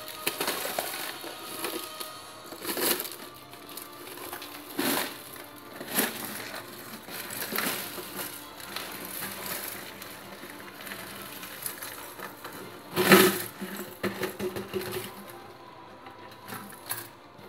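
Scrap circuit boards, RAM sticks and small electronic parts rattling in a clear plastic jar and clattering out onto a mat as the jar is tipped and shaken, in irregular clicks and knocks with the loudest clatter about two-thirds of the way through.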